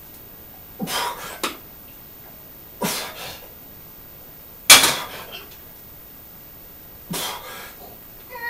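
A man breathing out hard in short, sharp bursts, about six of them a second or two apart, the loudest near the middle: the effort of strength training.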